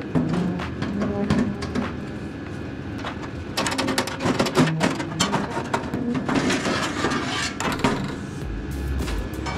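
Loose steel sheet-metal cab panels clanking, rattling and scraping as they are handled and lifted off.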